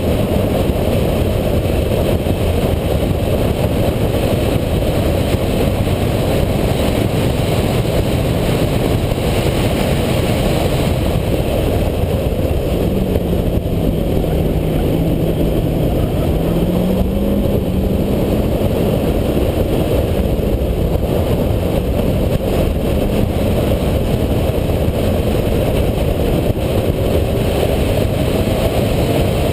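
Renault Clio RS four-cylinder engine driven hard on a race circuit, mostly buried under a steady, dense rumble of wind and road noise. Its note falls through a slow corner about halfway, then climbs again as it accelerates out.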